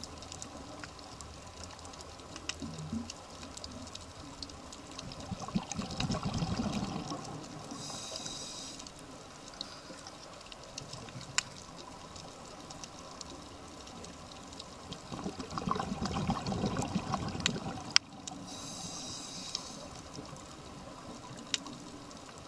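Scuba regulator breathing underwater: twice a bubbly rush of exhaled air, about six and sixteen seconds in, each followed by a short hissing inhalation through the regulator, with faint scattered clicks throughout.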